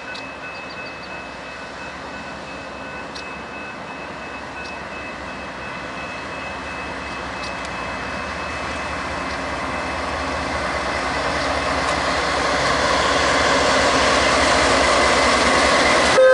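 Diesel freight locomotives, led by a rebuilt Norfolk Southern GE widecab unit with Canadian Pacific units behind, approaching and passing close by. Their engine and wheel noise grows steadily louder as the lead unit reaches the camera.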